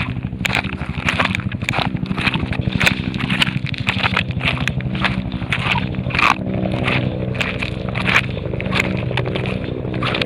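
Footsteps crunching on gravel, about two steps a second, over a steady low hum.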